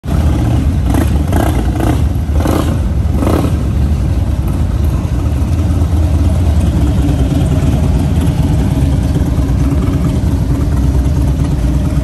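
Motorcycle engine running on the move, with a steady low drone of engine and road noise and a few short surges in the first few seconds.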